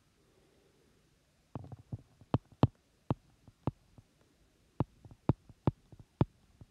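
Stylus tip tapping on an iPad's glass screen while handwriting a word. About a dozen short, sharp clicks come at uneven intervals, starting after a quiet second and a half.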